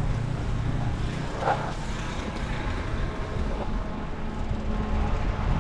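Low, steady rumble of street traffic, with a brief higher sound about a second and a half in.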